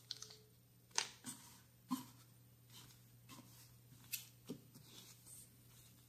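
Faint scattered clicks and light rustling of small lighter repair parts and a plastic parts bag being handled on a wooden tabletop, over a low steady hum.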